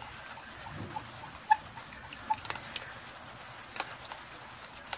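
A spoon stirring mashed aloe vera gel with calamansi juice in a small container: irregular clicks and taps of the spoon against the container, the loudest about a second and a half in.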